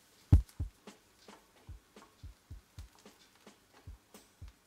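Wooden spoon knocking and scraping against a frying pan as onion and garlic are stirred continuously over medium-high heat: a string of short knocks, about three a second, the loudest near the start.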